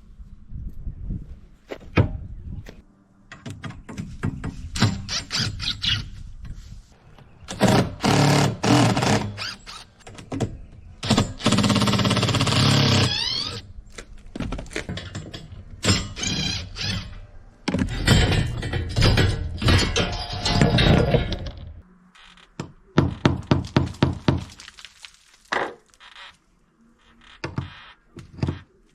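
Repeated knocks and thunks of tools on the wooden rail and its fastenings, with short bursts of a power driver whose motor rises in pitch. The rail is being unfastened and removed.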